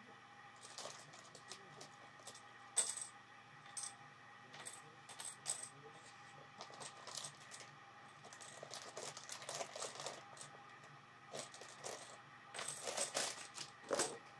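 Small plastic BlueBrixx building bricks clicking and clattering as they are handled and picked through: irregular light clicks, coming thickest near the end.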